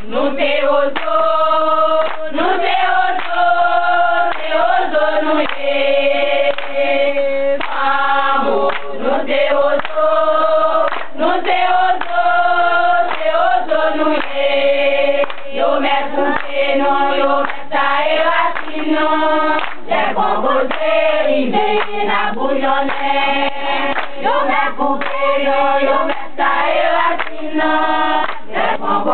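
A group of women singing a Haitian Creole song together, a continuous sung melody with no breaks.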